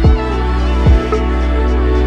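Background music: a slow, soft song with sustained notes and a melody over a deep bass beat, two bass drum hits landing about a second apart.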